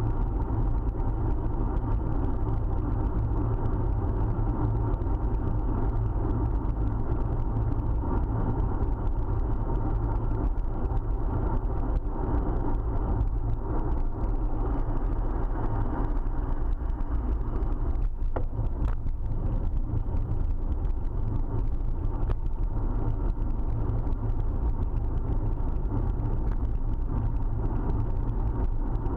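Steady low rumble of road vibration and wind picked up by a GoPro sealed in its waterproof housing on a moving road bicycle, muffled by the housing, with traffic noise mixed in. A few light clicks come a little past the middle.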